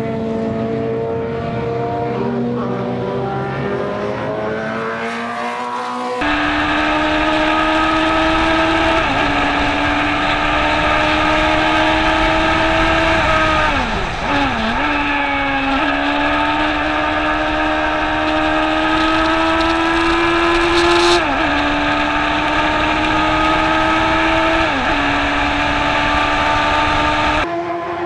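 Open-wheel race car engines at speed. For the first few seconds two cars are heard from trackside. Then comes one engine heard on board, at full throttle, its note climbing steadily and dropping sharply at each gear change, about four times, with a deeper dip near the middle where the car slows for a corner. Near the end it switches back to a car passing at trackside.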